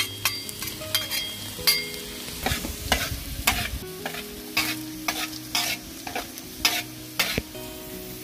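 Garlic sizzling in hot oil in a frying pan while a metal spatula stirs it, scraping and knocking against the pan in quick irregular strokes.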